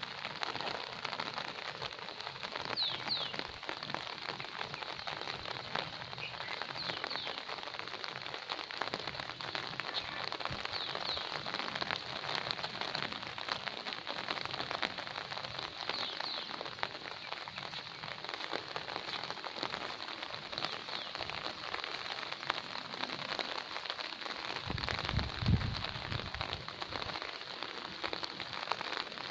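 Steady rain falling on garden foliage and ground, a dense even patter. A few short high chirps come through it, and there is a brief low rumble near the end.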